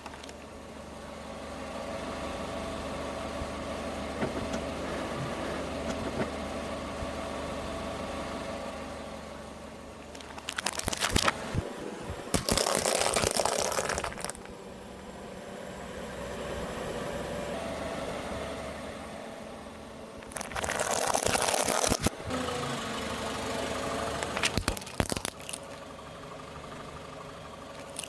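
A car's engine running slowly and steadily as the car rolls over objects, which crack and crunch loudly under the tyres in several bursts, the longest lasting a second or two.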